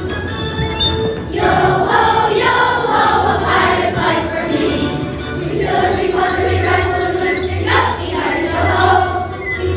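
A group of children singing together to a recorded instrumental backing track with a pulsing bass. The music starts right away and the voices come in about a second in.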